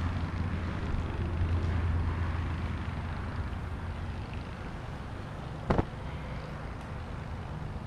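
Dual-action polisher running with a pad and compound on a carbon fibre hood: a steady whirring with a low hum that eases off after the first couple of seconds. A brief sharp knock about six seconds in.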